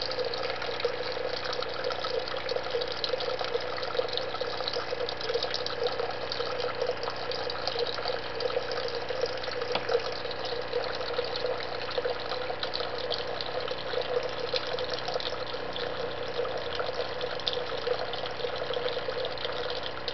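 Water running steadily from a Waterlic water ionizer, splashing as it flows.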